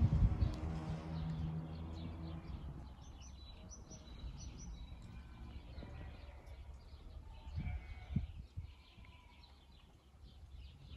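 Small birds chirping in short high calls over a rural background, with a low steady hum fading out over the first few seconds and a few dull thumps about three-quarters of the way through.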